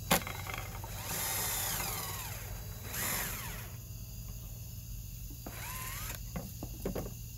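Cordless drill boring a screw hole through a deer antler's base, run in three short bursts whose pitch rises and falls as the trigger is worked. A sharp click comes right at the start.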